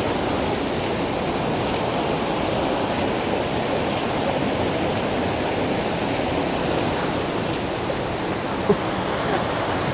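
Steady rush of a waterfall and its cascading stream, with one short knock near the end.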